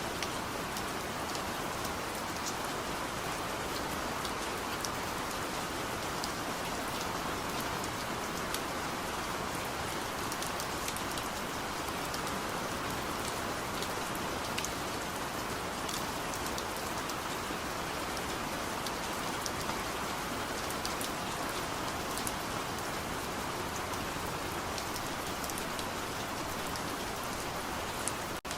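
Steady rain falling: an even hiss with scattered sharp ticks of single drops striking a surface. The sound cuts out for a split second near the end.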